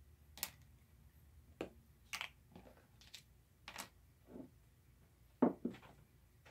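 Light clicks and knocks, about eight in all, from a small glass spice jar and measuring spoons being handled and set down on a table, the loudest about five and a half seconds in.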